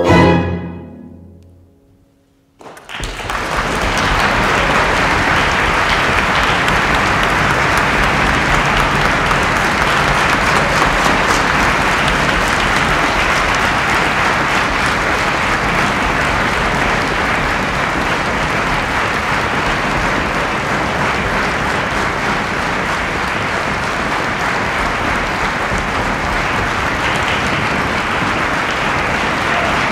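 The orchestra and solo bassoon end on a final chord that dies away within about two seconds. After a brief silence, audience applause starts and continues steadily.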